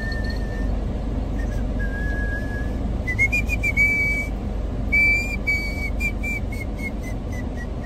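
A person whistling a melody: long held notes, then a phrase of short notes stepping down in pitch near the end, over a steady low rumble.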